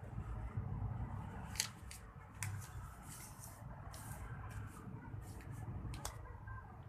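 A sheet of paper being handled and folded by hand: irregular short rustles and sharp creasing clicks over a steady low hum.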